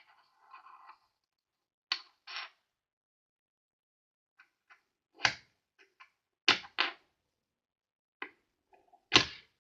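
Hard objects being handled: a series of sharp knocks and clicks, about six clear ones with faint ticks between, the loudest about nine seconds in.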